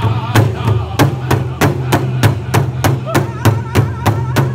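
Large powwow drum struck in unison by several drummers with beaters, a steady beat of about three strokes a second. Singing voices come in faintly at the start and again in the last second or so.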